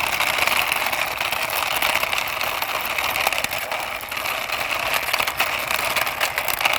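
Small toy racing car being pushed along by hand, its wheels rolling and whirring steadily over the surface with a fine rapid rattle.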